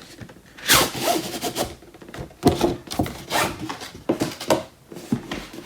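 Rigid cardboard product box being opened and handled: a series of short rubbing, scraping strokes, with a few knocks.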